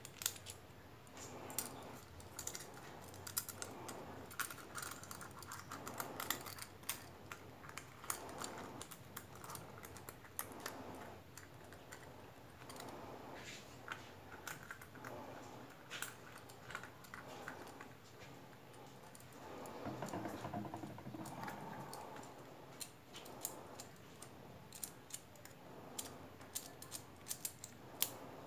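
Stainless-steel worm-drive hose clamps being handled and adjusted on a silicone hose: irregular small metallic clicks and ticks, with a stretch of rustling handling noise about two thirds in.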